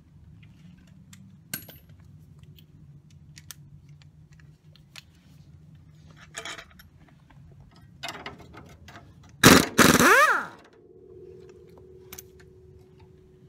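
Impact wrench driven in two quick bursts on the 17 mm suspension nut and bolt, about nine and a half seconds in, its motor whining down in pitch as the trigger is let go. Scattered light clicks and clanks of tools being handled come before it.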